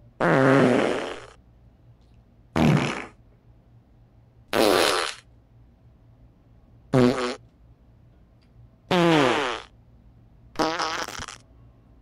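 A string of six fart sounds, about one every two seconds, each a short pitched blat of a second or less. Several slide down in pitch.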